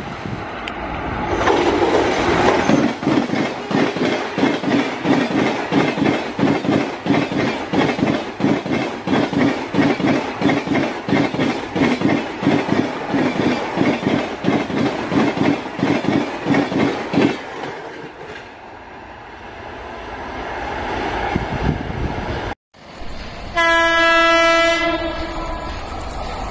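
Passenger train coaches passing close at speed, their wheels clattering fast and evenly over the rail joints, cutting off abruptly about two-thirds of the way in and leaving a quieter rolling rumble. Near the end, a single steady train horn blast lasting about a second and a half, over the running noise of a moving train.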